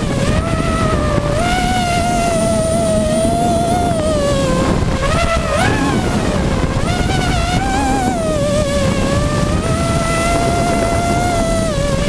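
Hexacopter's six Robbe 2216 brushless motors and propellers whining, recorded from the onboard camera. The pitch wavers up and down with the throttle and climbs sharply about halfway through, over a steady rush of air noise.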